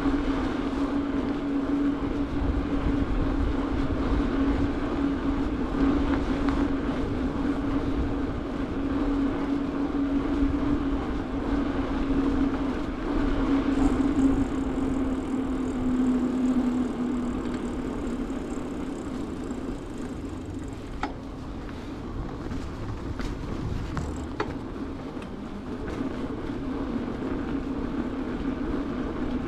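Bicycle rolling on asphalt: steady tyre rumble and hum with wind on the camera microphone, easing off a little after about seventeen seconds, with a few sharp clicks a little past twenty seconds.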